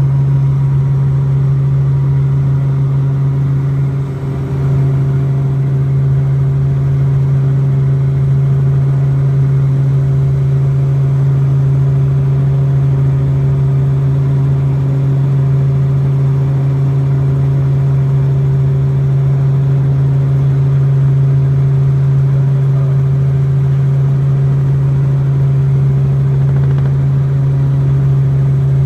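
Robinson R44 helicopter heard from inside the cabin: engine and rotors making a loud, steady drone with a strong low hum that holds an even pitch, dipping slightly about four seconds in.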